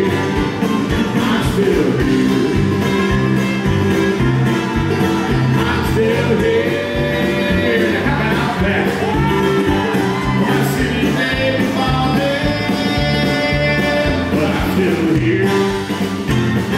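Live bluegrass-rock band: a man sings lead over mandolin, bass and drums, with a steady beat.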